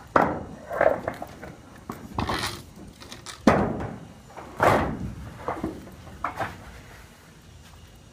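Sheet-steel pool wall panel being handled and set against the old pool wall: a series of sharp bangs and thuds, about seven in six seconds, that stop about six and a half seconds in.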